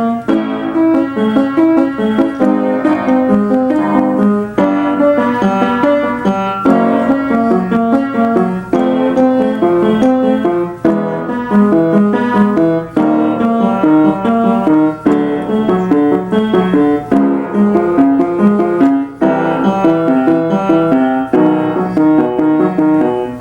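Piano playing a short vocal-warm-up pattern, repeated about every two seconds, as accompaniment for a men's singing exercise on meh, meh, mah sounds.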